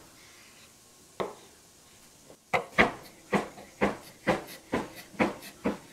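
Chef's knife chopping strips of vegan bacon on a bamboo cutting board: one knock about a second in, then steady chops of the blade against the board, about two a second, through the second half.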